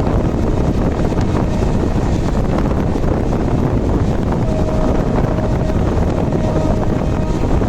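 Loud, steady vehicle rumble with heavy wind buffeting the microphone. Two faint held tones, each about a second long, come through in the second half.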